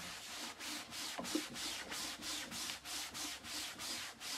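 Cloth rubbing back and forth over a painted wooden drawer in quick, even strokes, about three a second. It is wiping the excess Dixie Dirt glaze off the paint.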